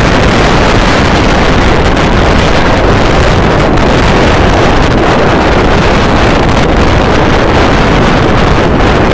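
Loud, steady wind buffeting the microphone of a moving motorcycle, with the ride's rushing noise and no breaks.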